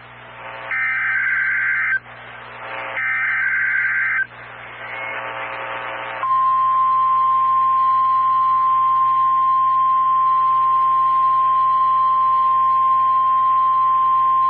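NOAA Weather Radio alert signalling for a required weekly test: the last two buzzy SAME digital header bursts, each about a second long, with radio hiss between them. About six seconds in, the steady single-pitch warning alarm tone (1050 Hz) starts and holds unbroken.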